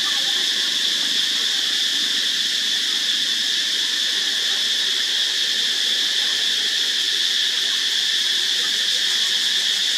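Steady, high-pitched drone of a daytime insect chorus, unbroken throughout.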